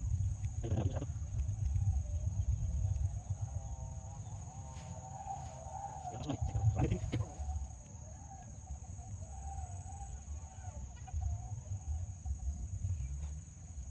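Chicken calls: a long wavering call lasting several seconds in the middle, with a few shorter calls before it, over a low rumble and a steady high insect whine.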